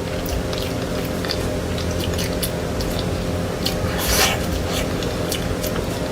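Close-up eating sounds of someone biting and chewing cake: scattered small wet clicks and crackles, with a stronger bite noise about four seconds in, over a steady background hum.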